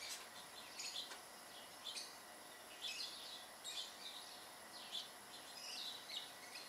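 Faint bird chirps, short calls repeating about once a second over a low steady hiss.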